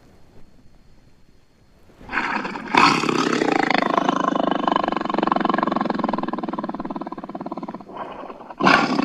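A big cat's long, raspy roar, starting about two seconds in and lasting some six seconds, followed by another roar beginning near the end.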